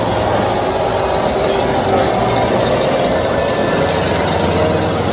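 V8 engine idling, running loud and steady.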